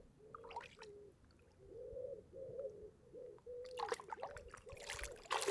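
Lake water sloshing and splashing around hands as a carp is released at the margin, louder in the last couple of seconds as the fish kicks away. A string of short, repeated pitched notes runs underneath.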